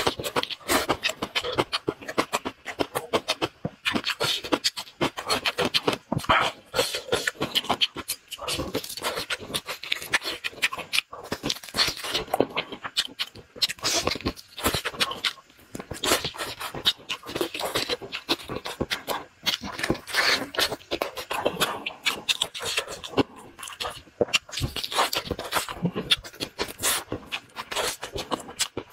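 Close-miked mukbang eating sounds: a person chewing and slurping food, a dense, irregular run of wet mouth clicks and crackles.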